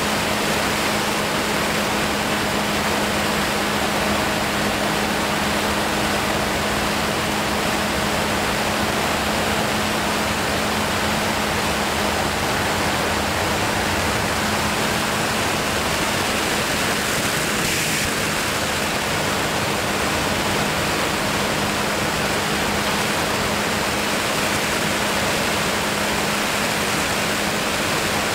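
Steady rush of air past the microphone in flight, an even wind noise with a steady low hum underneath.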